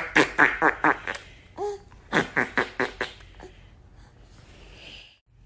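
Laughter in quick, rhythmic ha-ha pulses: one bout through the first second, a short break, then a second bout from about two to three and a half seconds in.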